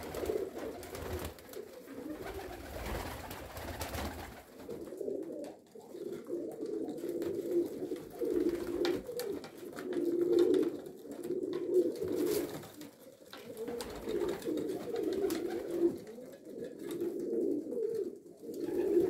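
Domestic pigeons cooing in a small loft, several birds calling over one another in repeated rolling coos. A stretch of rustling noise fills the first four seconds before the cooing takes over.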